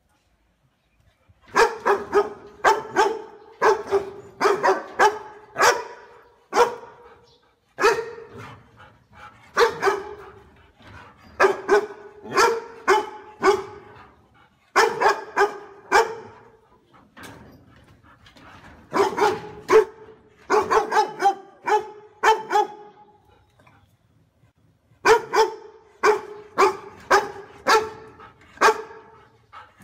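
Tan dog barking loudly in runs of quick barks. The runs are separated by short pauses, and the first bark comes about a second and a half in.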